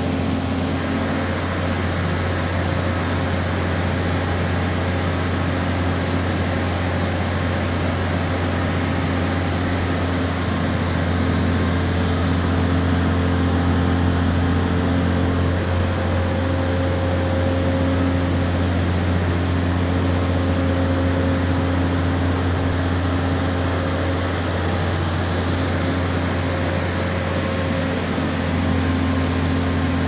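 Engine of a 52 m truck-mounted concrete pump running steadily with a low hum, driving the hydraulics that unfold the boom. It grows slightly louder through the middle.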